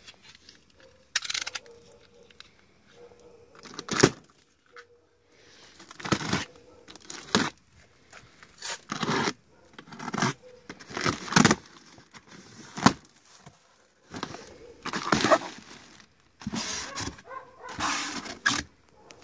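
Utility knife slicing through packing tape and plastic strapping on a cardboard box, then the cardboard flaps and plastic wrapping being torn and pulled open with crackling and scraping, in a dozen or so short bursts.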